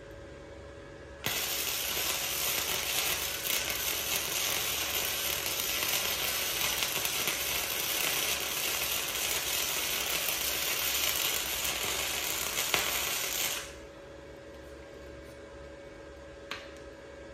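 Flux-core wire-feed welder's arc crackling steadily through one continuous bead of about twelve seconds, starting about a second in and cutting off sharply. A faint click follows near the end.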